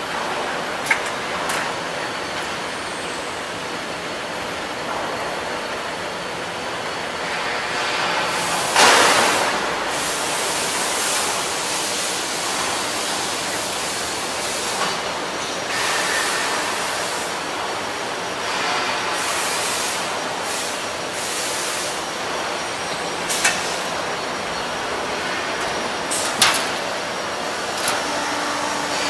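Automatic HVAC air-duct production line running: a steady machine din with hissing surges and a few sharp knocks.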